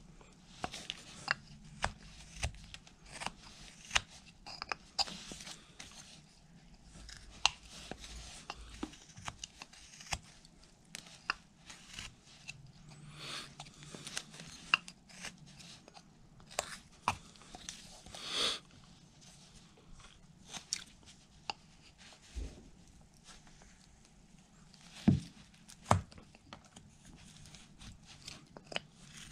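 Carving knife slicing through a basswood block: irregular sharp clicks as chips pop off and short scraping cuts, one longer scrape about two thirds of the way through.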